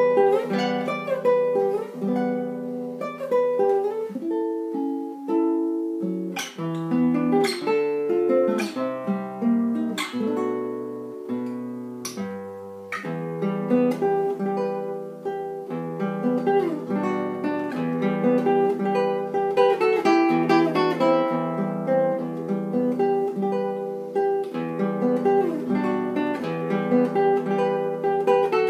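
Nylon-string classical guitar played solo: flowing plucked melody and arpeggios over bass notes, with a few sharply struck chords about a quarter to halfway through.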